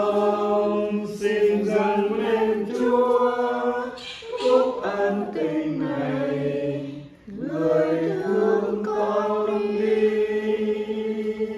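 Voices singing a slow song, holding long notes, with a short break about seven seconds in.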